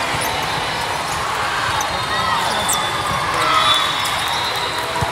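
Busy din of a large convention hall full of volleyball courts: volleyballs being hit and bouncing, heard as scattered sharp smacks over a steady wash of distant voices and play.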